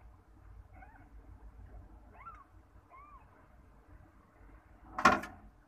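Newborn kitten giving faint, thin, high mews, four times in the first three seconds, each rising and falling in pitch. About five seconds in comes one short, loud meow.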